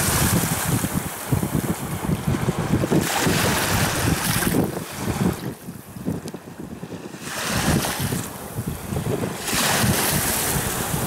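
Strong gusty wind buffeting the microphone, with storm waves washing onto a stony shore. The gusts ease for a couple of seconds around the middle, then pick up again.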